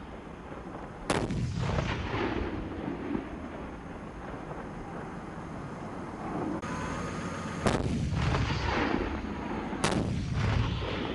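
Heavy gunfire from a Panhard AML-90 armoured car's 90 mm gun: three sharp, loud blasts, one about a second in and two close together near the end, each followed by a low rolling rumble.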